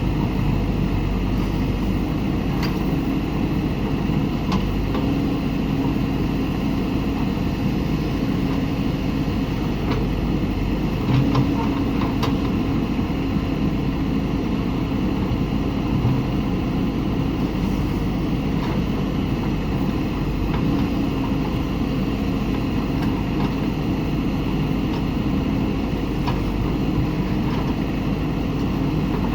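JCB backhoe loader's diesel engine running steadily, with a few short knocks scattered through, the loudest about 11 seconds in.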